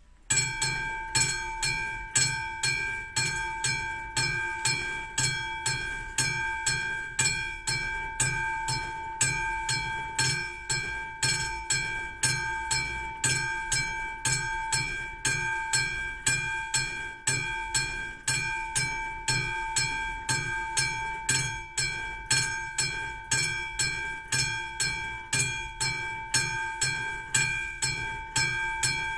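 Classic level-crossing warning bell of an AŽD Praha crossing, starting abruptly and striking in a steady, even rhythm, each stroke ringing on into the next. The crossing has just activated, warning of an approaching train.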